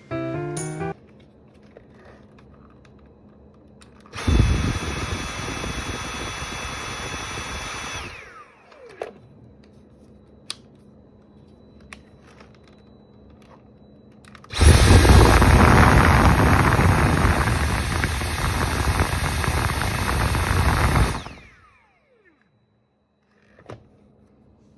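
Dyson SV10 (V8) cordless stick vacuum motor running on its replacement battery: switched on twice, about 4 seconds and then about 7 seconds, with a steady high whine, winding down each time it is released.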